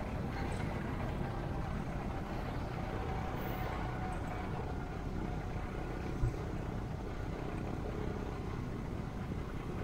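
Steady engine and road rumble of a vehicle driving through city streets, with a single brief thump about six seconds in.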